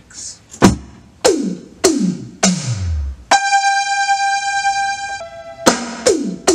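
Alesis Command mesh electronic drum kit's sound module playing pad-triggered electronic sounds. First come four evenly spaced hits, each sweeping steeply down in pitch. Then a held synth-like note rings for about two seconds and steps to another pitch, followed by two more falling hits near the end.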